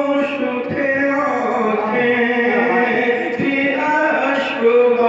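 A man's voice chanting devotional Urdu verses (a naat) in long held notes that step from pitch to pitch.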